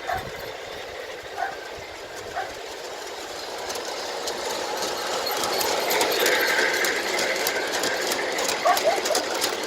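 G-scale model locomotive with a DCC sound decoder running along the track pulling cars, its motor and wheels making a steady mechanical sound with rapid fine ticking. It grows louder from a few seconds in, as if coming nearer.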